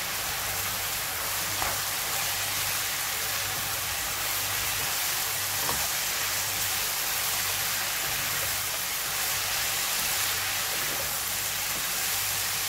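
Shredded potato and carrot frying in a pan, a steady sizzle as it is stirred and turned with a metal spatula, with a couple of light knocks of the spatula against the pan.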